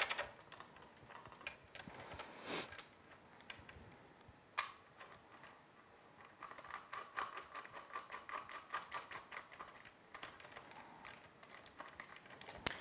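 Quiet clicks and ticks of a small field monitor and its extension arm being handled and fitted onto a camcorder, with a single louder click about four and a half seconds in and a run of quick small ticks in the second half.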